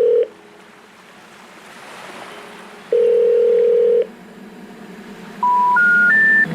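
Telephone line tones: a steady tone that cuts off just after the start and sounds again for about a second, with a soft hiss between. Near the end come three short beeps rising in pitch, the special information tone that comes before a 'number not in service' message.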